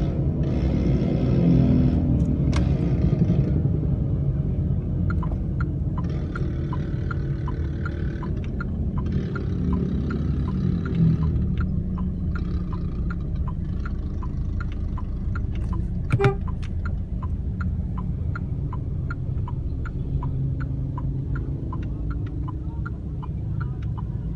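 Old two-stroke Vespa scooter engine running on the road amid traffic, a steady low rumble. A light regular ticking, about two ticks a second, runs through most of it, with one sharper click about 16 seconds in.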